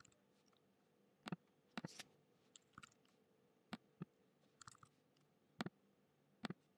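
Faint, sparse clicks of a computer keyboard and mouse: about ten separate clicks, some in quick pairs, with quiet room tone between them.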